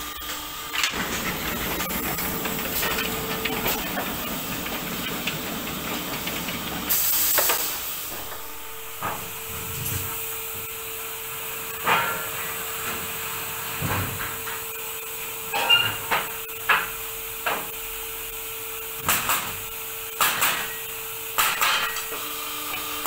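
A 1996 Olimpia Chiodatrici T30 pallet nailing line running. A steady mechanical noise gives way, about seven seconds in, to a short, loud burst of air hiss. A steady hum follows, broken by scattered knocks and clatters of wood and metal, which come more often near the end.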